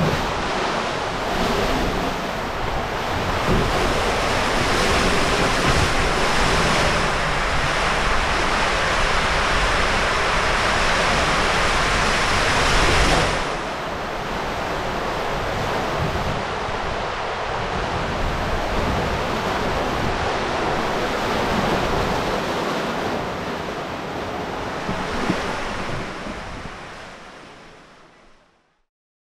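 Water rushing through an enclosed waterslide tube as a rider on an inflatable ring slides down, a loud steady rush. It drops in level abruptly about halfway through and fades out near the end.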